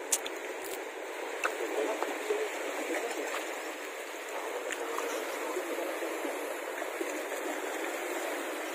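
Steady rush of creek water, with a few faint clicks in the first two seconds.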